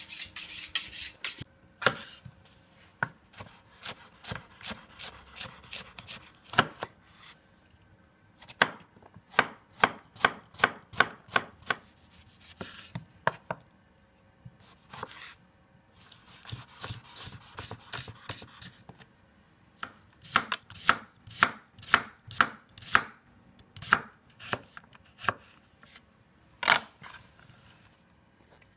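Chef's knife drawn quickly along a sharpening steel for a second or so, then chopping vegetables on a wooden cutting board: runs of sharp knife knocks against the board, about three a second, broken by short pauses.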